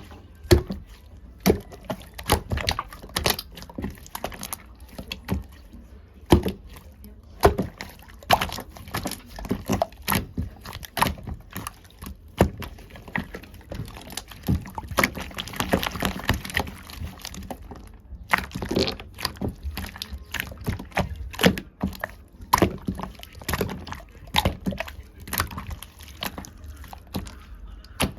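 Watery slime being squished and kneaded by hand: quick, irregular wet squelches and pops, with a denser run of squelching about halfway through.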